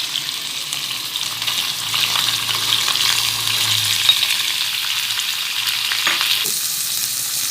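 Raw chicken pieces frying in a little hot oil, sizzling steadily, with a spatula stirring them and clicking against the pan now and then.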